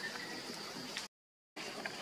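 Quiet outdoor ambience: a steady high-pitched hum with faint scattered chirps and ticks. Just past halfway it drops out to total silence for about half a second at an edit, then resumes.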